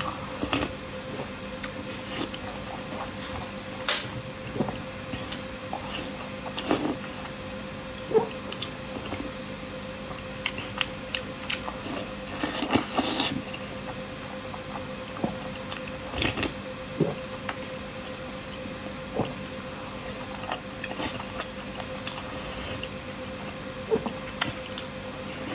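Close-miked eating of boiled eggs in spicy chili-oil sauce: soft wet chewing and squishing, sips of sauce from a spoon, and scattered sharp clicks of spoon and chopsticks. A longer, louder burst of mouth noise comes about halfway through, over a faint steady hum.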